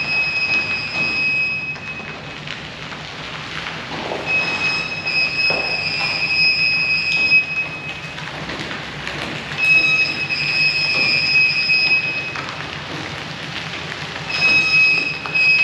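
A vehicle backing a utility trailer into a metal garage: a steady low engine hum, with a high, steady squeal that comes and goes four times in stretches of two to three seconds.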